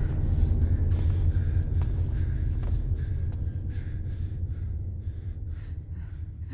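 A man gasping and choking as he is strangled, short breathy gasps coming more often toward the end, over a steady low rumble that slowly fades.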